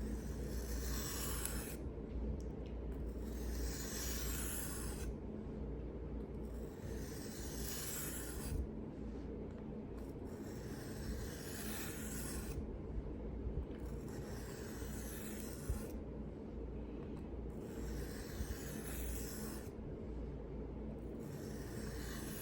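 Knife blade drawn along a sharpening stone in slow, even passes. Each scraping stroke lasts about two seconds, with a short pause between, about seven in all, over a steady low hum.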